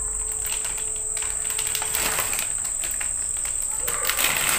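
Plastic bag rustling and crinkling as it is snipped open with scissors, over a steady high-pitched whine.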